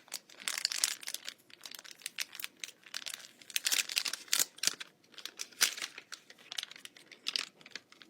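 Perfume packaging being handled and crinkled, in irregular bursts of rustling and crackling.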